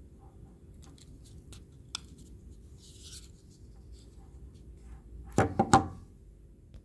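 Victorinox Swiss Army Knife Rescue Tool being handled to open its reamer: small clicks and a brief rub of metal and plastic, with one sharper click about two seconds in. Then a quick run of three loud knocks about five and a half seconds in.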